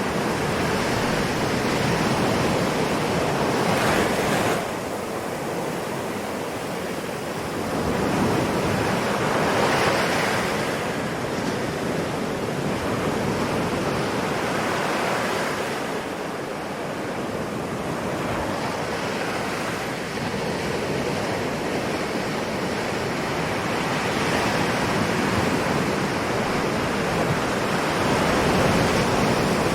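Ocean waves washing in continuously, with swells that rise and ease every few seconds.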